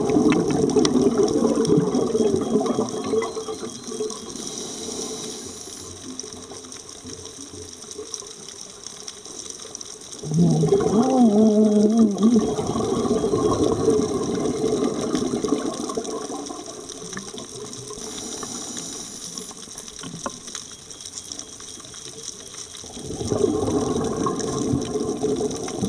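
Scuba diver breathing through a regulator, heard underwater: bubbling, gurgling exhalations in three bouts roughly ten to twelve seconds apart, with a faint hiss of inhalation in the quieter stretches between. The middle exhalation carries a brief wavering buzz.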